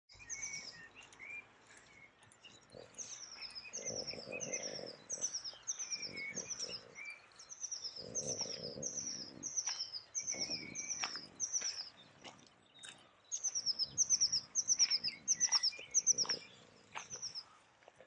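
Songbirds singing: one bird repeats a high, downward-slurred note about two to three times a second in long runs, over scattered lower chirps from other birds. A few soft, low rustling sounds come and go beneath the song.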